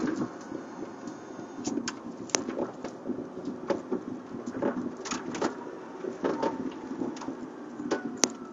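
Cabin noise inside a Tesla electric car driving slowly: a steady low rumble of tyres on the road, with frequent sharp knocks and rattles. A faint electric-motor whine falls in pitch near the end.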